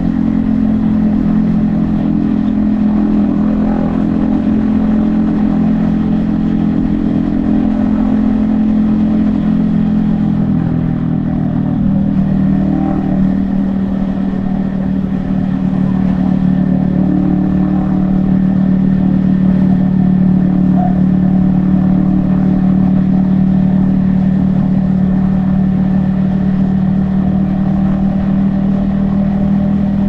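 Yamaha XSR155's 155 cc single-cylinder engine running at a steady cruise. The engine note drops about eleven seconds in and then holds steady, with wind rush on the helmet-mounted microphone underneath.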